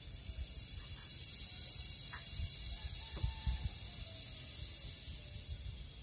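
Philippine cicada (kuliglig) calling: a high-pitched, hissing buzz that swells up, holds, then fades near the end, over a low rumble.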